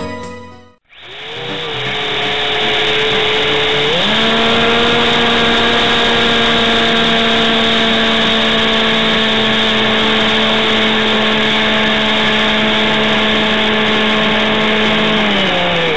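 Electric motor and pusher propeller of a Multiplex EasyStar RC plane, heard through the onboard camera's microphone: a steady whine over loud airflow hiss. Its pitch steps up about four seconds in as the motor speeds up, holds, and slides down again near the end.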